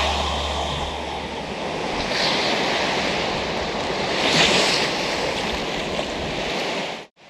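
Ocean surf washing onto a beach, with waves breaking louder about two seconds in and again about four and a half seconds in. It cuts off suddenly near the end.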